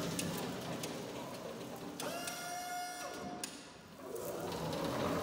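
1998 BT LT 2200 electric pallet truck driving on a concrete floor: its electric drive motor whines over the rumble of the wheels. About two seconds in, a steady whine holds for about a second, the sound dips, then a rising whine comes in near the end as the truck picks up speed again.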